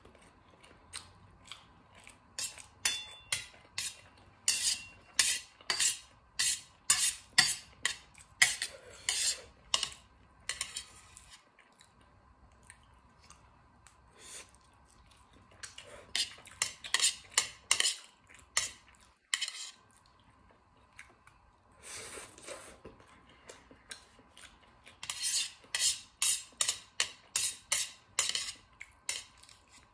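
Metal chopsticks clicking and scraping on a stainless steel plate while picking up leftover noodles, in runs of quick clicks with pauses between.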